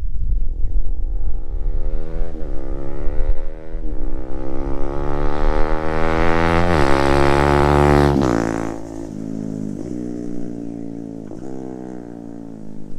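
Bajaj Pulsar NS200's single-cylinder engine through an Akrapovic exhaust, accelerating up through the gears: the pitch climbs, dips briefly at upshifts about two and a half and four seconds in, and peaks near eight seconds. The throttle then closes and the engine note falls away and gets quieter as the bike slows, with a couple of short blips later on.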